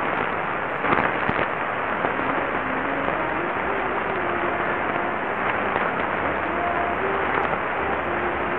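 Qodosen SR-286 radio receiving a weak, distant AM station on 594 kHz medium wave: a steady hiss with crackling static crashes, the loudest about a second in. Faint wavering tones of the station's audio sit under the noise.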